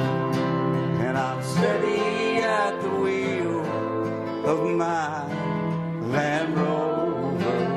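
Country song with guitar playing between verses, its lead line sliding up and down in pitch.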